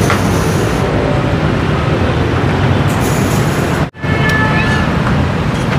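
Steady road traffic noise, a dense low rumble of passing engines, that cuts out briefly about four seconds in.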